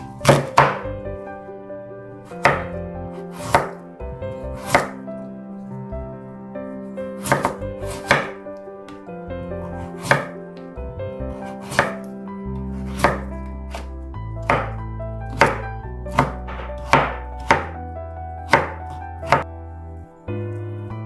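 Chef's knife cutting through a Korean radish onto a wooden cutting board: separate sharp strikes, roughly one a second and unevenly spaced, over soft background music.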